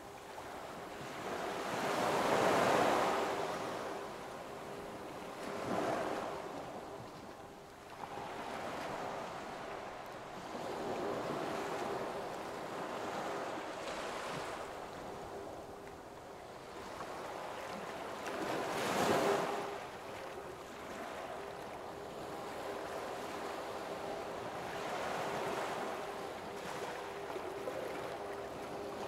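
Steady rushing wind noise with gusts that swell louder about two, six and nineteen seconds in, over a faint steady hum.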